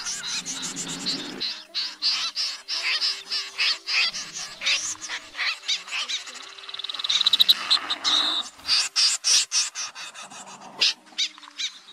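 Common snipe and jack snipe calling, a lure recording for night net trapping: a dense run of harsh, rapid chirps and clicks, with a fast rattling trill about halfway through.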